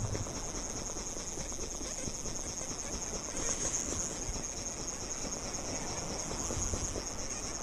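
Wind and small waves on open lake water, with a steady high-pitched hiss throughout.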